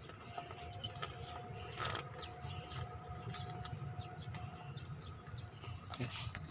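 Steady high-pitched chirring of insects over a low hum, with small clicks and rustles of a zippered fabric backpack being handled.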